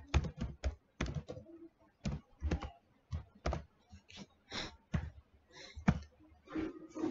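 Keystrokes on a computer keyboard: irregular clicks, a few a second, in short runs with brief pauses.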